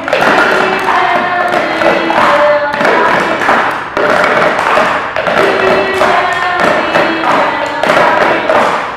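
A group of children singing a song while beating drumsticks in rhythm on upturned paper cups.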